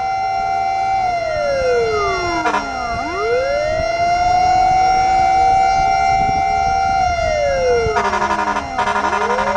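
Fire truck siren wailing: it holds a high pitch, slides down over about two seconds, then quickly swoops back up and holds again, twice. Near the end a second, rapidly pulsing siren sound joins it.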